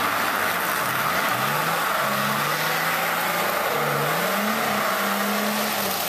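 Ford Ranger pickup's engine revving up and down several times as it pulls forward out of a boggy, icy rut against a winch line. A steady rushing hiss runs under the engine.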